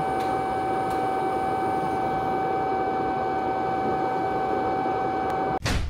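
TIG welding arc on stainless steel pipe: a steady hiss with a constant whine running through it. Near the end it cuts off abruptly and music with drum hits starts.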